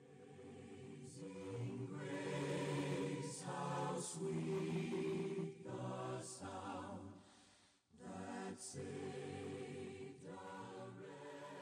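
Choral intro music: voices singing sustained chords that fade in over the first couple of seconds, break off briefly about eight seconds in, then carry on.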